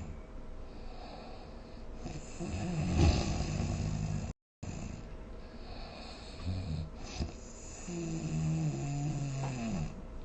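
A person snoring, two long snores: one swelling to a peak about three seconds in, the other near the end carrying a pitched tone that falls away. The sound cuts out completely for a moment a little before halfway.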